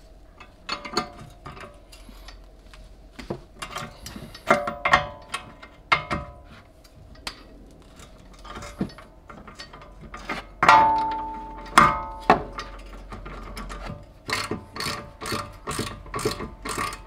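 Hand ratchet clicking in short runs as it backs a nut off the rear strut's upper mounting bolt, with about three clicks a second near the end. Two loud ringing metal clanks about two-thirds of the way in.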